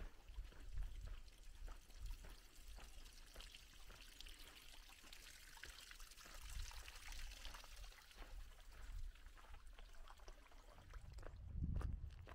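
Water pouring and trickling into a livestock watering tank, loudest midway through, over footsteps on a dirt trail; a louder low rumble near the end.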